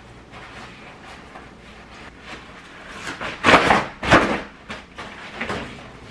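Freshly washed pillowcase being shaken out hard. There are two loud flaps of fabric a little past halfway, then a few lighter ones.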